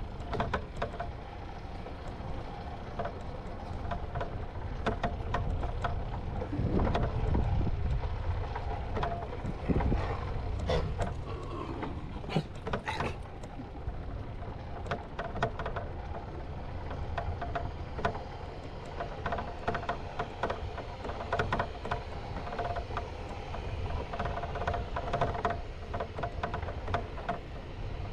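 Bicycle rolling over stone paving: frequent small clicks and rattles from the bike over a steady low rumble, a little louder for a few seconds in the first half.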